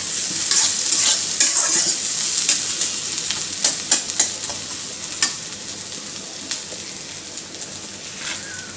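Onions sizzling in hot oil in an iron karahi while a metal spatula stirs them, scraping and clicking against the pan. The sizzle is loudest in the first few seconds and eases off toward the end.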